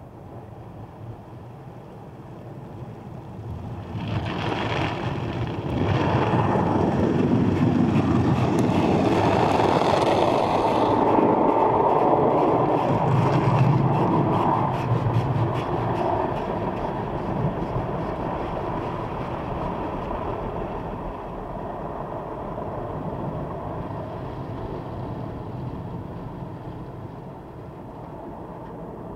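Automatic car wash spraying water over the car, heard from inside the car's cabin: a steady noise that comes in about four seconds in, is loudest over the next ten seconds, then slowly dies down.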